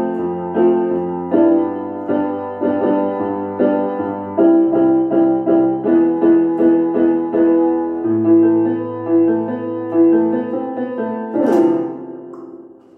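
Electronic keyboard played with a piano sound: a steady run of repeated chords over a bass line. Near the end a brief noisy bump comes as the hands leave the keys, and the last notes fade out.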